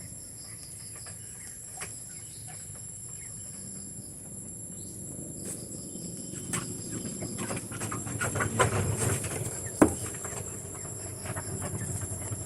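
Steady high-pitched insect chorus, with scattered small clicks and crackles and one sharper click about ten seconds in.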